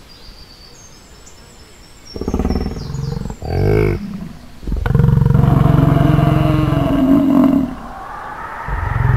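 Animal roar sound effect for a cartoon bison: a low growl begins about two seconds in, swells briefly, then breaks into one long loud roar of nearly three seconds from about five seconds in, with a short last burst near the end.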